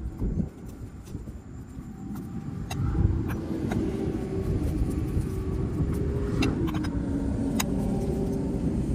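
A motor vehicle running close by: a low rumble that grows louder about three seconds in, carrying a wavering hum for a few seconds. A few sharp, separate clicks come through it, from the hand tool tightening a battery terminal nut.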